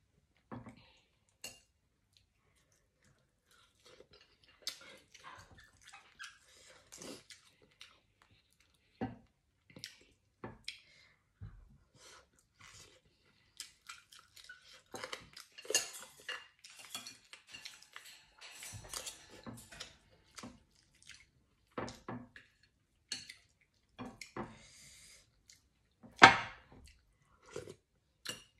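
A metal spoon clinking and scraping against a metal pan and a plate in scattered short knocks, mixed with chewing and slurping while eating. One clink near the end is much louder than the rest.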